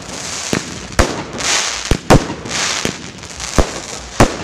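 A fireworks display: aerial shells bursting in several sharp bangs, irregularly spaced, with hissing crackle from the bursts in between.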